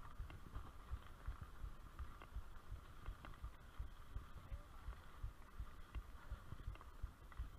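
Mountain bike riding over a rough dirt trail: irregular low knocks and rumble as the bike and its mounted camera jolt over the ground, with a few light rattling clicks.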